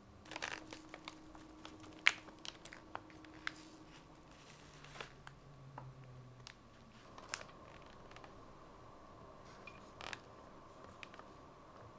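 Clear plastic bags of dried kombu being handled on a wooden table: scattered crinkles, clicks and taps, the sharpest about two seconds in.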